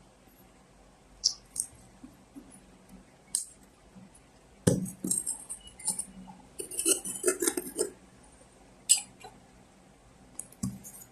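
A parcel of small glass tea glasses being unboxed by hand: scattered light clicks and knocks, with a dense stretch of packaging rustling and crackling about five to eight seconds in.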